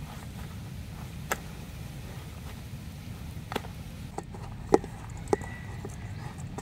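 Wooden spatula working crumbly flour dough in a stainless steel bowl, knocking sharply against the metal about five times, loudest a little before five seconds in, over a steady low background rumble.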